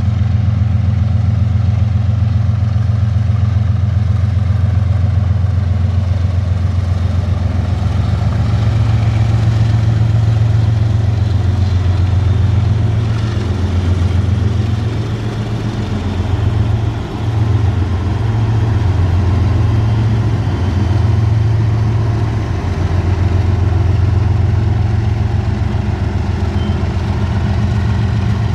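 Diesel freight locomotive engines running, a steady low pulsing drone.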